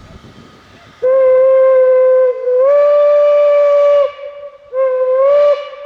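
Steam locomotive whistle of the class 23 engine 23 042, blown loudly. It gives a long blast about a second in that dips briefly and steps up slightly in pitch, then after a short break a shorter blast that rises in pitch.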